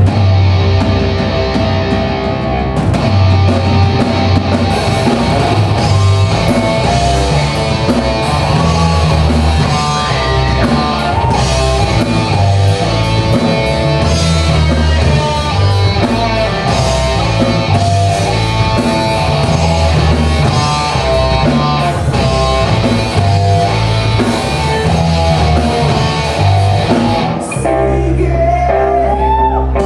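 Live rock band playing: electric guitars, bass and drums, with singing at times. The cymbals drop out briefly near the end while the guitars and bass carry on.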